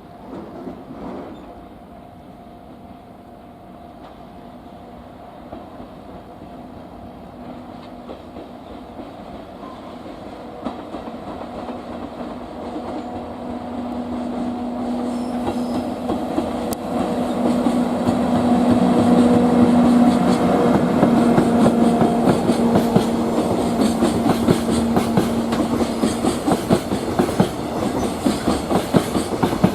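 A freight train approaches and passes: the locomotive's steady hum grows louder and peaks about two-thirds of the way in. The container wagons then follow, their wheels clacking in a regular rhythm over the rail joints.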